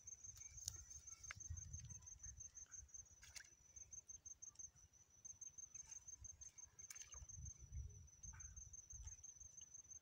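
Faint, steady high-pitched insect chirping, pulsing several times a second, over a low rumble of wind on the microphone and a few faint clicks.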